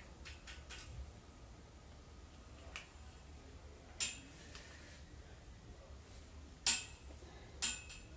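Flat iron (hair straightener) being clamped and slid through hair, its plates clacking shut with a few sharp clicks, the loudest a little past the middle and another near the end.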